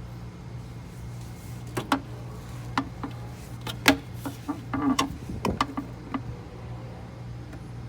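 Light plastic knocks and clicks, about a dozen over four seconds, from PVC pipe and fittings being handled and fitted against each other. A steady low hum runs underneath.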